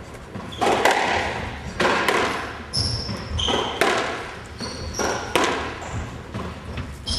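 Squash rally: the ball is struck by racquets and smacks off the walls about once a second, each hit ringing around the enclosed court, with short high squeaks of court shoes on the wooden floor in between.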